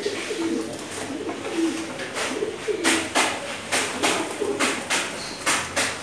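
Domestic pigeons cooing in low, repeated calls. From about two seconds in, a run of sharp taps, the loudest sounds here: beaks pecking grain off the ledge.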